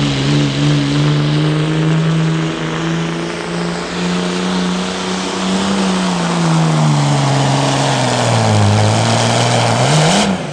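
Dodge Ram pickup's Cummins turbo-diesel at full throttle, pulling a weight-transfer sled. The engine note holds steady, then sinks as the sled's load builds and drags the revs down. After a short rise it cuts off suddenly near the end as the pull stops.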